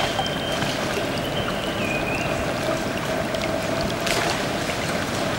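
Toque macaques splashing and thrashing in shallow river water over a steady wash of flowing and dripping water, with one sharper splash about four seconds in.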